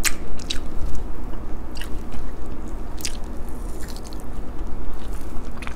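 A person chewing a mouthful of homemade beef tapa close to the microphone, with a few sharp, wet mouth clicks.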